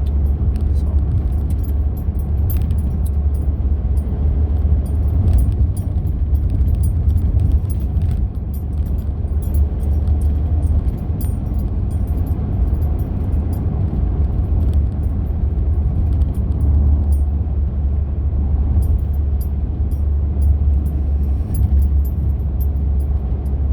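Steady low road rumble heard inside a moving car on a rough highway surface, with light rattles and clicks from the cabin scattered throughout.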